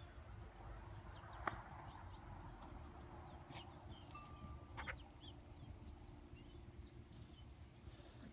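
Faint birdsong outdoors: many short, high chirps and whistles, over a low steady rumble, with two sharp clicks, about a second and a half in and again about five seconds in.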